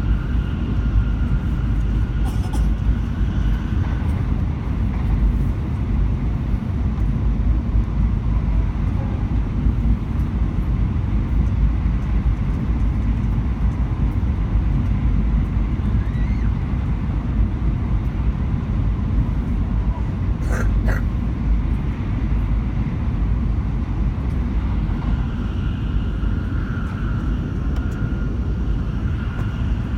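Shinkansen bullet train running: a steady low rumble and rush of noise, with a couple of brief clicks about two-thirds of the way through.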